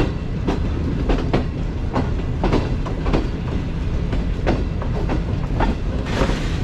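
Passenger train wheels clacking over rail joints and points as the train is switched through a junction, irregular sharp clacks about twice a second over a steady low rumble.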